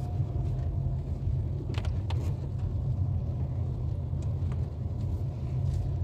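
Steady low rumble inside a Dacia Duster's cabin as it drives on a wet road in the rain, with a few short sharp ticks about two seconds in.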